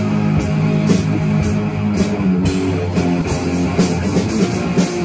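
Electric guitar through a small combo amp and an acoustic drum kit playing rock together, with drum and cymbal strikes about twice a second under the held guitar notes.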